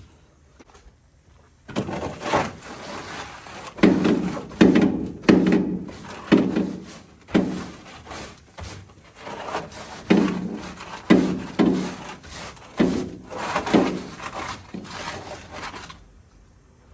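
Pine straw and soil being scraped and knocked out of an old car's trunk: a run of repeated scraping, knocking strokes, roughly one a second, starting about two seconds in and stopping a second before the end.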